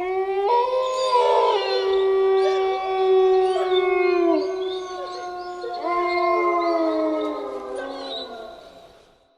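Several wolves howling together in a chorus: long overlapping held notes at different pitches, each sliding down as it ends, fading out near the end.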